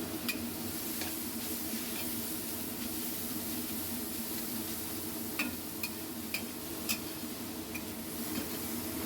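Food stir-frying in a pan with a steady sizzle, while a spatula stirs it and clicks against the pan several times, mostly in the second half.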